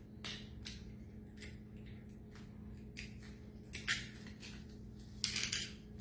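Garlic press squeezing fresh garlic cloves, a series of short, irregular crackles and clicks, the loudest about four seconds in and a cluster near the end.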